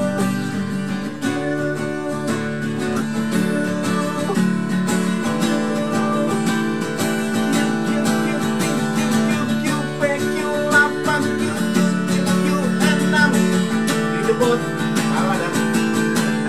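Acoustic guitar strummed, chords ringing on steadily through the song's instrumental passage.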